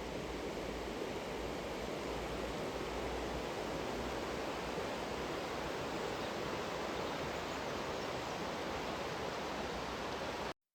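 Steady outdoor rushing noise with no distinct events, cut off abruptly near the end.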